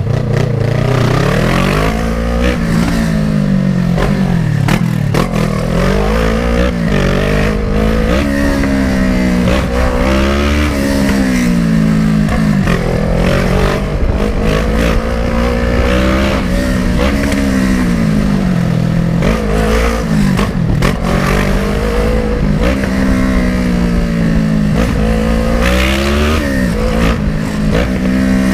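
Kawasaki ER-6n's 650cc parallel-twin engine being ridden in traffic, its pitch rising and dropping again and again as it accelerates and eases off.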